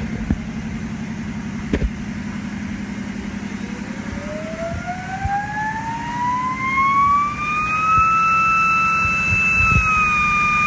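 Bema 3D engraving and copy-milling machine running, with a steady low motor hum, a fast rattle and a few sharp knocks. About three and a half seconds in, a whine rises smoothly in pitch as the spindle motor speeds up. It levels off at a high steady pitch with a slight drop near the end.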